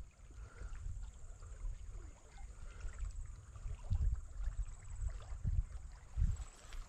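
Faint river water with irregular low rumbling thumps, strongest about four seconds in and again near the end.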